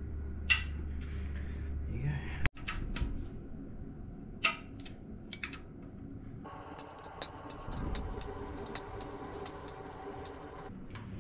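Hand tools working the rocker arm bolts on an LS1 cylinder head: a few separate metal clinks, then a run of quick ratchet clicks from about six and a half seconds in until near the end.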